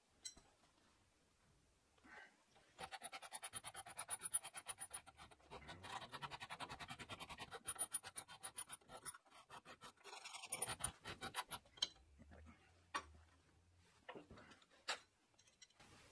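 Flat steel hand file rasping across the end of a steel nail, in quick back-and-forth strokes, filing the nail down flush with a steel flat bar. The filing starts a few seconds in and stops about nine seconds later. A few light clicks of metal being handled follow.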